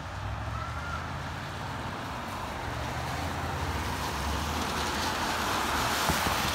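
Road and wind noise of a moving car: a steady low rumble under a hiss that grows louder toward the end.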